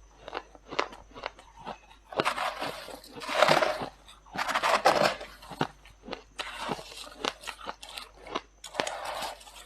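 Freezer frost being bitten and chewed close to the microphone. Short separate crunches come first, then about four longer runs of dense crunching from about two seconds in as mouthfuls are chewed.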